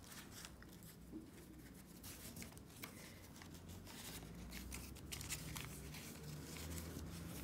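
Faint rustling and crinkling of washi paper being folded and creased by hand, with scattered small clicks and ticks.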